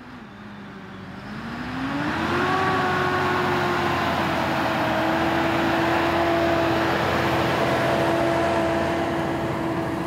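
Valtra S416 tractor engine pulling a cultivator through the soil. Its note rises over the first couple of seconds and then holds steady under load, over the rushing noise of the implement working the ground.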